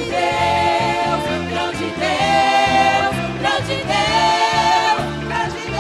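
A vocal group singing a gospel song with a band, holding long sustained notes in harmony over a steady bass and beat.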